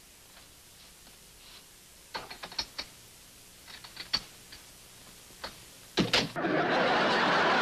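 Scattered small clicks and knocks, then a door latch and two heavy knocks as the door is pulled open. A second later a studio audience starts laughing and applauding, a loud, even crowd noise.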